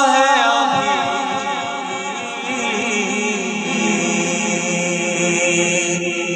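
A man's unaccompanied voice singing an Urdu naat through a microphone. He holds a long, wavering note, which about a second in gives way to lower, slower melodic singing over a steady hum.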